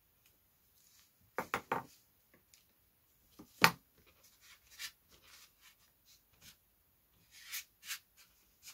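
Small scrapes and clicks of a craft knife and fingers working tissue paper on a balsa wing frame: a quick run of three scrapes about a second and a half in, one sharp click near four seconds, then lighter ticks and rustles.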